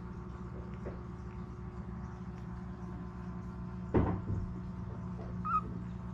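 A low steady hum with a single sharp knock about four seconds in, then a brief high squeak from a newborn basset hound puppy near the end.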